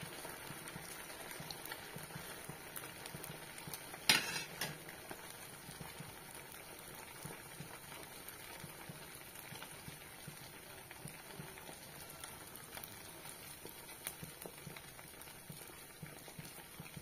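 Sabudana pakoras deep-frying in hot oil: a steady bubbling sizzle, with a single sharp knock about four seconds in.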